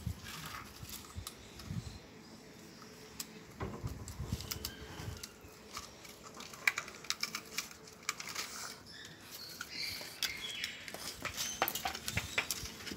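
French bulldog puppies mouthing and nosing a scrap of wooden board on concrete: scattered small clicks and scrapes.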